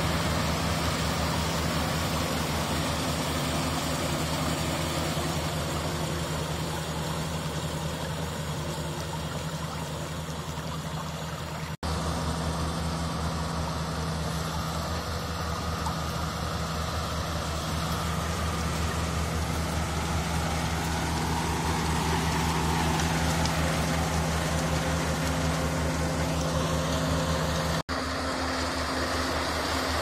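Daedong DSC62 rice combine harvester running as it cuts and threshes standing rice: a steady low engine drone under a dense mechanical hiss. The sound drops out for an instant twice, about twelve seconds in and again near the end.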